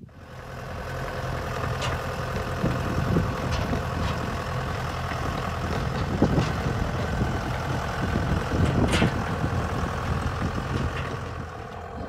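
John Deere loader tractor's diesel engine running steadily as it moves a wheeled chicken coop across snow, with a few sharp knocks along the way.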